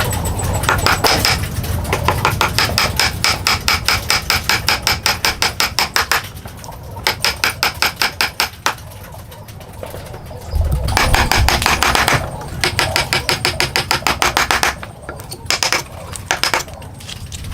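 A hammer striking in quick, even runs of blows, several a second, broken by short pauses.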